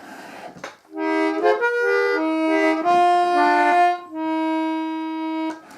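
A free-reed instrument playing a short melodic introduction in chords, starting about a second in and ending on a long held chord.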